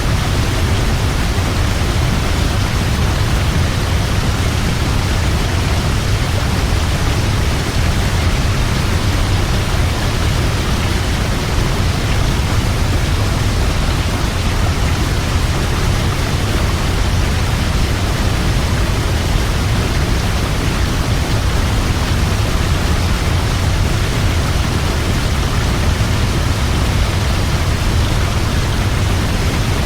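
Large waterfall: a loud, steady rush of falling water with a deep low rumble, unchanging throughout.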